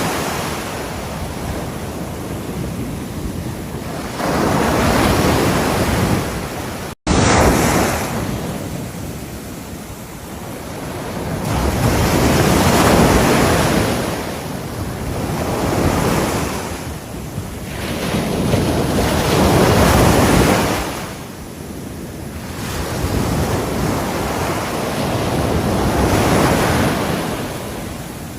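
Ocean waves breaking on the shore, each surge swelling and washing out every few seconds, with wind noise on the microphone. The sound cuts out for an instant about seven seconds in.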